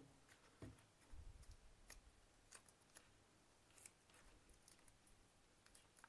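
Near silence, with a few faint clicks and rustles of hands handling insulated wires.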